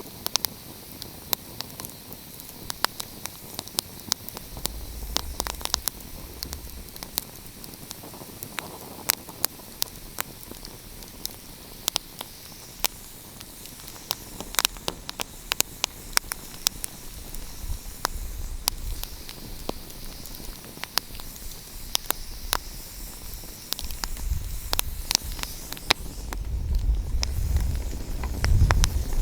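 Wood fire crackling, with frequent sharp irregular pops over a steady hiss. A low rumble swells briefly about five seconds in and builds again in the last few seconds.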